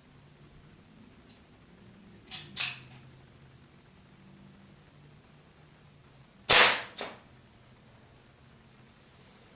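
Two shots from a homemade .22 calibre PCP air rifle with a quick exhaust valve, firing on air regulated to about 110 psi. Each is heard as two sharp cracks a fraction of a second apart, about four seconds between the shots, and the second shot is the louder. Pellets strike a plastic laptop lid.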